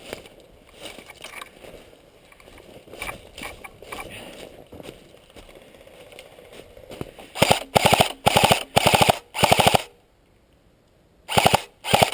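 Airsoft electric gun (AEG) firing full-auto bursts at close range: four quick bursts of rapid shots between about seven and ten seconds in, then two short bursts near the end. Before the bursts there is faint rustling in dry leaf litter.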